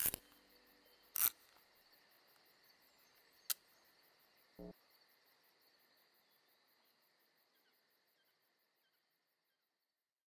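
Faint ambience with a steady high, insect-like trill that slowly fades to silence. Over it come a few sharp clicks, the loudest about a second in and another a few seconds later, and a short low thump about four and a half seconds in.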